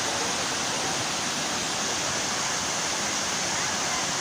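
Waterfall water falling and splashing: a steady, even rushing that does not change.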